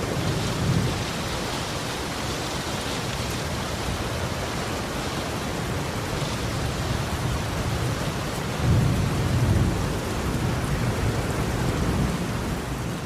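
Steady heavy rain hissing with rolling thunder; a low rumble swells just after the start and a louder peal rolls in about nine seconds in, lasting a few seconds.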